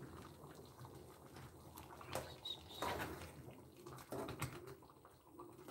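Faint, scattered light knocks and clicks of a spoon working in a metal cooking pot.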